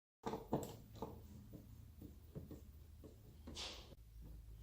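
Quiet small clicks and scratchy handling sounds of a screwdriver working out the plastic door trim's screws, with a short scrape about three and a half seconds in.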